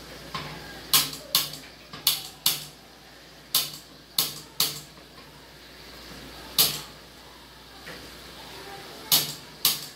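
Handheld piezo gas lighter clicking about eleven times at irregular intervals while it is held to a gas stove burner, trying to light it.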